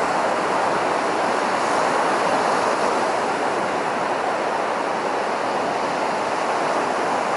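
Surf breaking and washing up on a sandy beach, a steady rushing wash of small waves close by.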